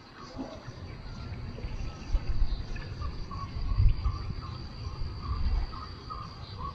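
Insects chirring steadily and high, with a run of short repeated chirps starting about halfway through, over an uneven low rumble that swells and fades.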